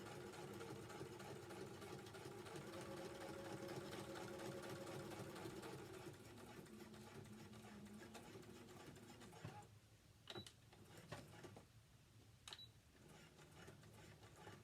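Brother electric sewing machine stitching, its speed shifting up and down, stopping about two-thirds of the way through. Two short sharp clicks follow.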